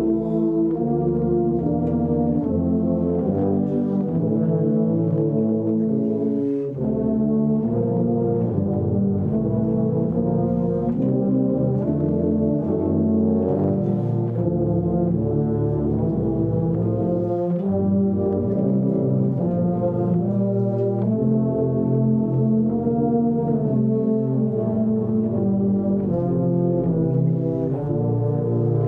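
Brass ensemble playing a holiday selection, several brass instruments sounding chords together in a continuous flow of changing notes, with a brief break about seven seconds in.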